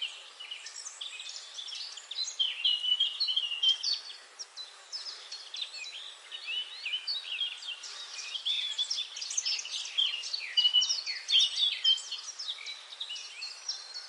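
Several small birds chirping and trilling at once, a dense overlapping chorus of short high calls over a faint background hiss.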